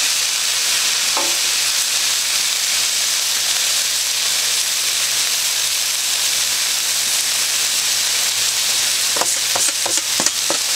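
Walleye fillets frying on the hot flat-top plate of a Blackstone portable griddle: a steady sizzle. A few short clicks come near the end.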